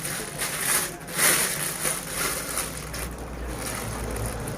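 Rustling and handling noise from the package being unwrapped: a few irregular bursts of hiss in the first half, then a low steady rumble.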